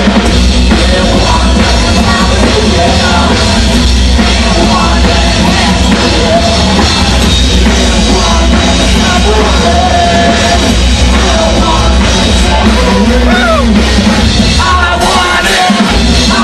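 Rock band playing live at high volume: a singer's vocals over electric guitar and drums.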